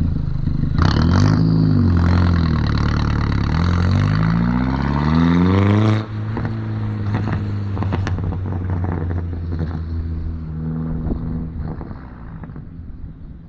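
Turbocharged 1.8-litre four-cylinder of a 2003 VW New Beetle 1.8T through a 3-inch catless downpipe and Cherry Bomb glasspack muffler, with no resonator. It is blipped once, then climbs steadily in revs for a few seconds and is cut off sharply about six seconds in, after which the engine runs lower and fades. The catless downpipe lets a lot of turbo whistle through.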